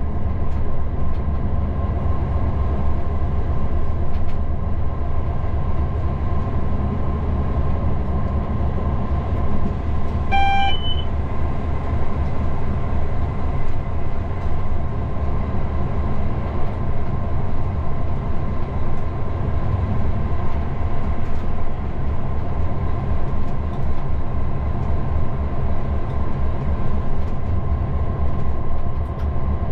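Class 59 locomotive's EMD two-stroke V16 diesel running steadily, mixed with the wheel-on-rail noise of a loaded freight train on the move. A short beep sounds once about ten seconds in.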